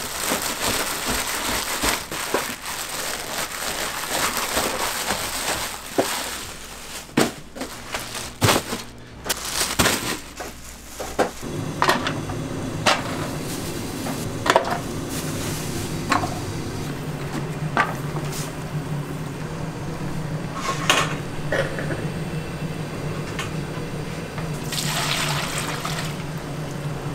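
A plastic bag of rice cakes crinkling as it is handled. Then a few sharp metal clinks against aluminium stockpots, and near the end liquid sauce pouring and splashing into a stockpot.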